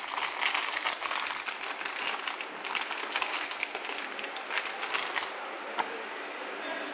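Plastic bag of butterscotch morsels crinkling and rustling as hands pull it open. It is a dense crackle that stops about five seconds in, followed by a single click.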